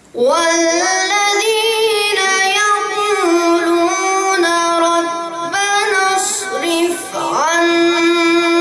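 A boy's voice reciting the Quran in the melodic tajwid style. It comes in sharply just after the start and moves through long, held notes with ornamented turns, dipping briefly near the end before another long held note.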